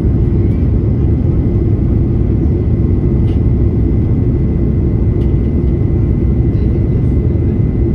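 Jet airliner cabin noise heard from a window seat: a steady low rumble of the engines and rushing air, with a faint steady high whine over it.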